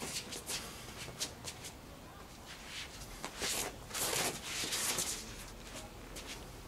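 Shoes scuffing and sliding on stone patio paving, with the swish of clothing and swings, as a short bat is worked through a footwork drill. First a run of short, quick scuffs, then longer, louder sliding rasps between about three and five seconds in as he drops low and pivots.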